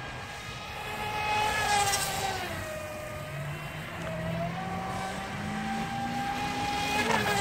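Barbwire XL RC speedboat's stock water-cooled brushless motor whining at speed, the whine dropping in pitch about three seconds in and climbing back about a second later as the throttle changes.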